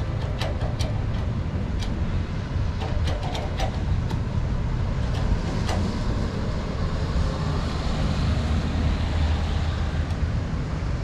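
Steady low rumble of vehicle noise, with a swell of tyre hiss from a vehicle passing on wet pavement in the second half, and a few sharp ticks in the first seconds.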